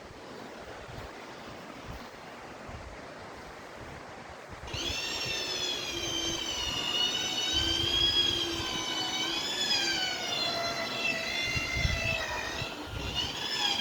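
A high metallic whine with several wavering tones starts about five seconds in and keeps going, like a zipline trolley's pulleys running along a steel cable. Before it there is a steady hiss of wind and water.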